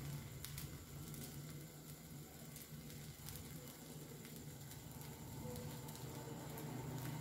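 Morappam batter faintly sizzling in hot oil in a cast-iron appakkara, with scattered small crackles over a low steady hum.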